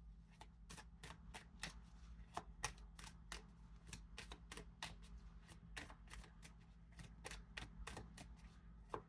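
Tarot cards being shuffled by hand: a faint, steady run of soft clicks and snaps, about three a second.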